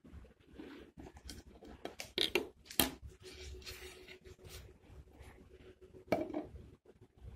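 Handling noise of a plastic toy Titanic model being turned about: scattered sharp clicks and knocks with light scraping. The loudest knocks come about two and three seconds in and again about six seconds in.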